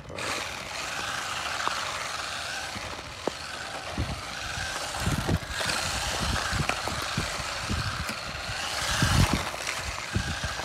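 SG-1603 1/16-scale brushed electric RC drift car driving on asphalt: a whine from its brushed motor that rises and falls with the throttle, along with tyre noise, and some low rumbles around the middle and near the end.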